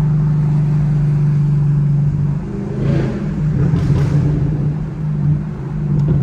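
Chevrolet Camaro SS V8 exhaust heard from the driver's seat: a steady drone while cruising, then about two seconds in the throttle comes off and the exhaust pops and crackles unevenly for a few seconds before the steady drone returns near the end.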